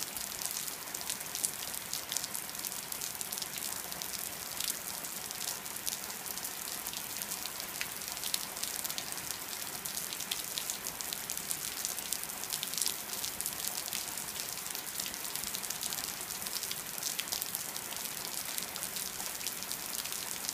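Steady rain falling, with many sharp drop hits close by.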